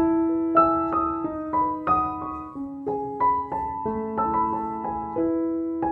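Background piano music: a slow melody of single struck notes, a few a second, each ringing on until the next.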